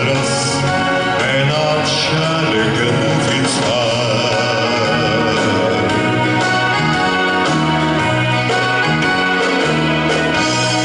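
Ballad's closing bars: a held sung note with vibrato over electronic organ chords, the organ carrying on alone toward the end.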